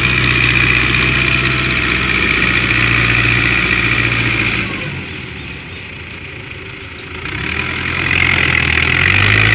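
Belarus 510 tractor's diesel engine running under load as it hauls a heavily loaded trolley across a soft field. About halfway through it dies down for a couple of seconds, then builds back up to full power.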